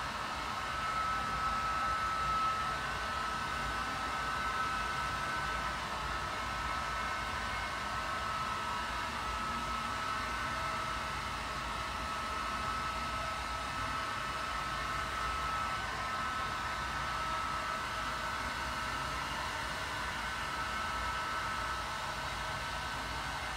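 Steady hotel-suite room tone: an even hiss with a faint high whine and a low rumble beneath.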